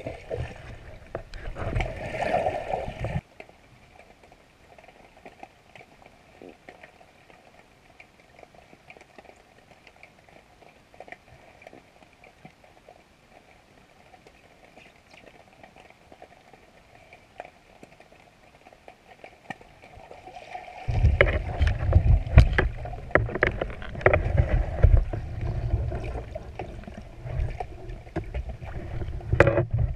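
Underwater water noise heard through a GoPro's waterproof housing: low churning and knocking at first, then a long quiet stretch with only faint scattered clicks, then loud churning and sloshing again from about two-thirds of the way through as the diver moves up toward the surface.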